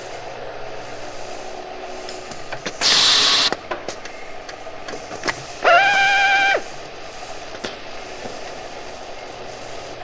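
Electric hand drill triggered briefly: its motor whines up to a steady pitch and runs for about a second before stopping, a little before the middle. Earlier, about three seconds in, comes a short loud burst of hiss, all over a steady low machine hum.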